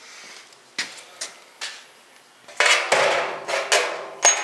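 Freshly cut 2x2 square steel tubing being handled: a few light knocks, then over a second of metallic clattering and scraping with a ringing tone, and a sharp clank near the end.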